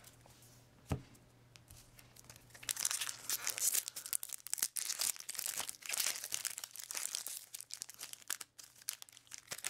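Foil Return to Ravnica booster pack wrapper being torn open and crinkled by hand: a dense, irregular crackle of foil that starts a few seconds in, after a single light tap about a second in.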